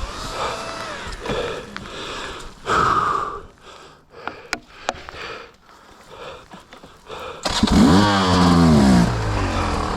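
Two-stroke dirt bike engine that fires up loudly about three-quarters of the way through, revs briefly and settles toward idle. Before it, scattered clicks and fainter engine sound.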